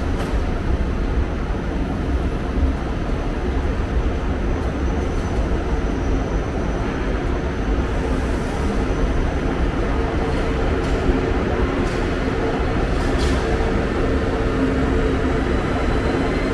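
A train running on the rails: a steady, loud rumble, with a faint high whine that rises slowly in pitch over the last few seconds.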